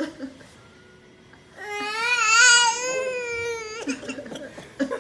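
A young child's voice giving one long, high, wavering cry or whine of about two seconds, starting under two seconds in; the pitch rises a little, then eases down before it stops.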